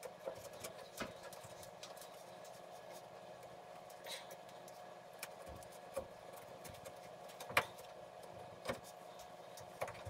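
Light clicks, knocks and small scrapes of hand work inside a furnace, pulling a loose piece of old sealant goo off the combustion blower pipe, scattered over a faint steady hum. The sharpest knocks come about a second in and at about seven and a half seconds.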